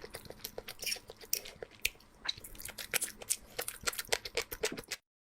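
Close-miked chewing and crunching of food, a dense run of crisp clicks and wet smacks that cuts off abruptly near the end.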